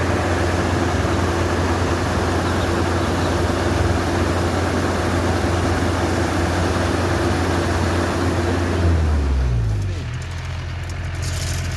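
Diesel engine of a Yanmar rice combine harvester running steadily. About nine seconds in, its note drops and it settles to a lower, slightly quieter running.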